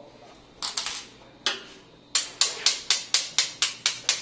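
Small hard parts of a Rossi Gallery .22 rifle being knocked together by hand to free a stuck piece. There are a few scattered knocks, then from about two seconds in a steady run of sharp taps, about four a second, each with a short bright ring.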